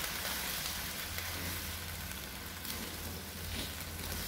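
Eggplant pieces in chili paste sizzling in a nonstick wok and stirred with a spatula: a steady frying hiss with a few soft scrapes, over a steady low hum.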